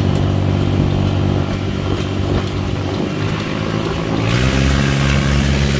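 Off-road buggy engine running. About four seconds in it revs up, the pitch rising and then holding higher.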